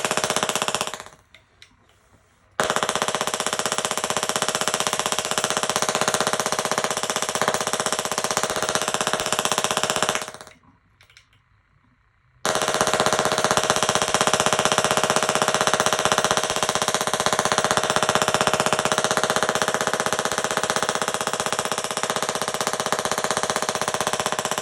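Tesla coil firing: a loud, rapid crackling buzz of spark discharge carrying a steady tone. It cuts out twice for about two seconds, about a second in and again near the middle, then starts again.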